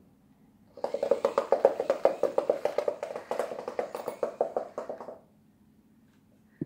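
Motorised automatic cat ball bouncing and rattling hard across a floor. A fast, irregular clatter of knocks starts about a second in, lasts about four seconds, then stops suddenly.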